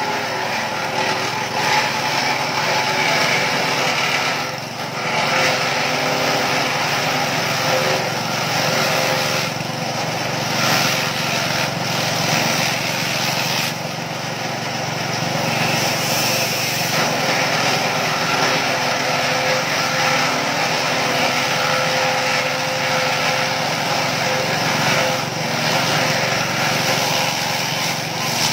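Small petrol engine of a grass chopper running steadily under load, with a rough shredding noise from its blades as elephant grass is fed through without a sieve. The level dips briefly a few times.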